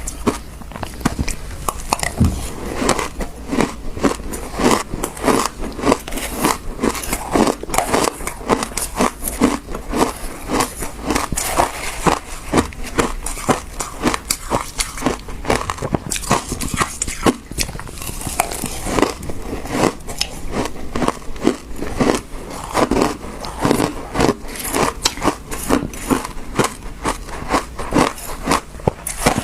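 Teeth biting and chewing frozen passion fruit: dense, rapid crunching, several crunches a second, with no let-up.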